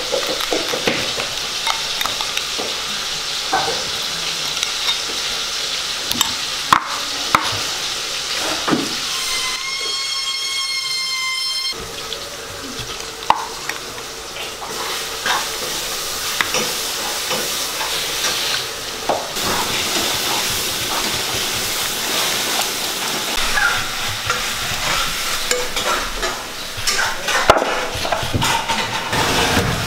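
A spoon stirring and scraping a thick chili marinade in a glass bowl, then hands working the marinade over a whole raw chicken on a steel plate, with scattered clicks and knocks. About a third of the way in, a steady high pitched tone sounds for about two seconds.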